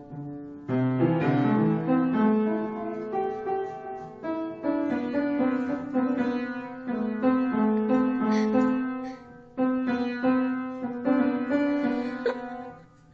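Piano notes and small chords struck and left to ring, in short phrases with brief pauses between them.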